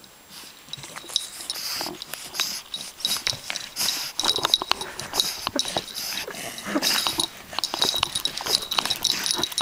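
English bulldog puppies making short dog noises close to the microphone, amid a rapid run of rustles and scuffs as the camera is jostled against them.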